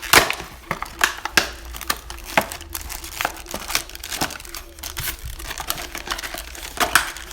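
Packaging being opened and handled: irregular rustling and crinkling with sharp crackles, as the box is gone through and its contents taken out.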